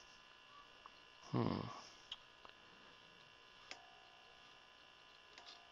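Portable tube radio's speaker giving a faint hum and noise while it is tuned, with no stations coming in. A few small clicks, and after one of them a faint steady tone holds on to the end.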